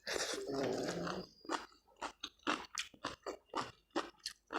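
A person chewing a mouthful of food close to the microphone: after about a second of continuous sound at the start, a run of short crisp crunches, roughly two to three a second.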